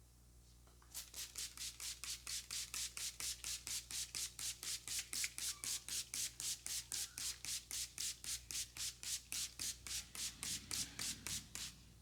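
Hands rubbing briskly in quick even strokes during a head massage, about four strokes a second, starting about a second in and stopping shortly before the end.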